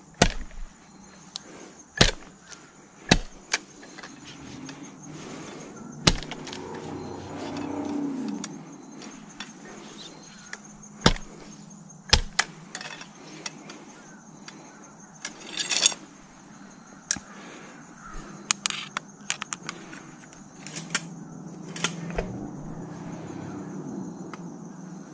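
Gear and camera being handled: irregular sharp clicks and knocks with some rustling, over a steady high-pitched drone.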